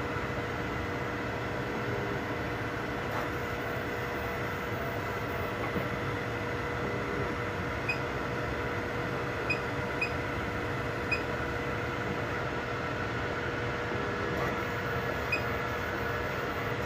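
3D printers running mid-print: a steady whir of cooling fans and stepper motors carrying several steady tones, with a handful of short high ticks scattered through the middle and near the end.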